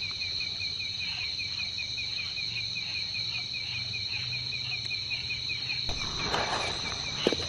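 Night insects calling without pause: a steady high-pitched trill with a fast, evenly pulsing chirp beneath it. A brief rustle and a sharp click come near the end.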